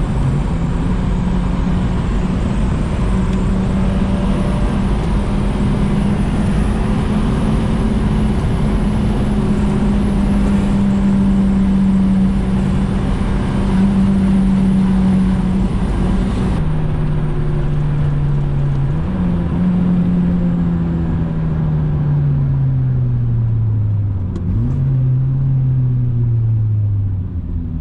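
H22A-swapped Honda Accord wagon's 2.2-litre VTEC four-cylinder running under way, heard from inside the car over road noise. The engine note holds steady for a long stretch, drops suddenly about two-thirds of the way through, rises briefly, then falls steadily as the car slows, with one short jump up in pitch near the end before falling again.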